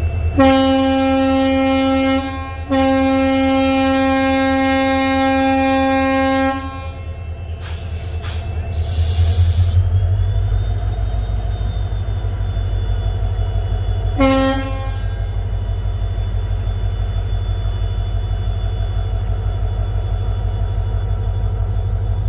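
WDG4 diesel-electric locomotive's 16-cylinder two-stroke EMD engine running with a steady low hum. Its air horn sounds a short blast, then a long one of about four seconds, and another short toot about fourteen seconds in. A burst of hiss comes about eight seconds in, after which the engine hum is louder.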